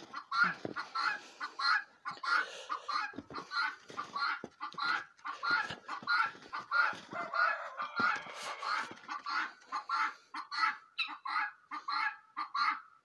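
Hens clucking: a steady run of short clucks, several a second.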